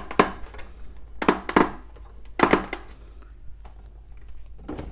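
Hard plastic parts of a large toy dinosaur figure knocking and rubbing together as they are handled, with several sharp knocks in the first half, then quieter handling.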